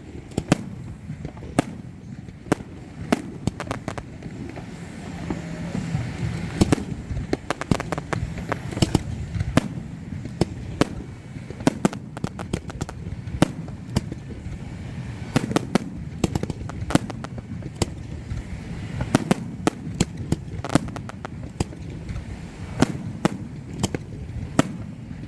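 Fireworks display: an irregular run of sharp bangs and pops, one to three a second, over steady low background noise.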